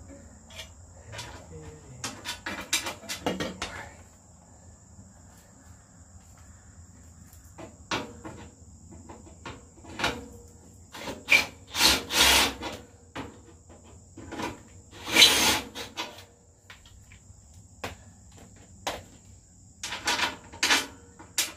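Intermittent knocks, clatters and scrapes of exhaust pipe parts being handled and fitted, in short clusters, the loudest about twelve and fifteen seconds in. Under them runs a steady high trill of crickets.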